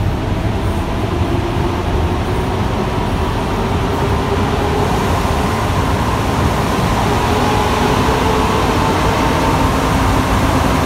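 Interior running noise of an Alstom NS-93 rubber-tyred metro car under way: a steady rumble with a few whining tones that grow louder from about halfway and rise slightly in pitch.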